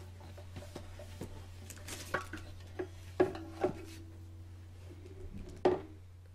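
Acoustic guitar being handled and set aside: a string of wooden knocks and bumps, the loudest about three seconds in and near the end, some followed by a brief ring from the strings. A steady low hum runs underneath.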